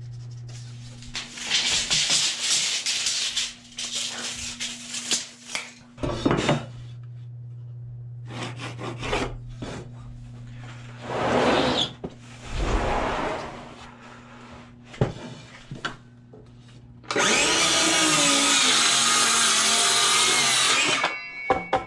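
Cordless circular saw crosscutting a 1x12 pine board, running steadily under load for about four seconds near the end before cutting off. Earlier, scratching and rubbing as the board is marked with a pencil and a metal speed square is laid on it.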